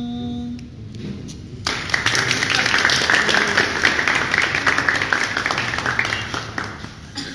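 A man's voice holds the last sung note of a song, which ends about half a second in. From about two seconds in, a small group claps by hand, loud and dense, then thins out near the end.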